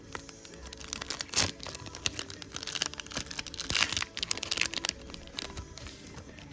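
Plastic wrapper of a sealed trading-card pack being torn open and crinkled by hand: a continuous run of crackles with two louder rips, about a second and a half and nearly four seconds in.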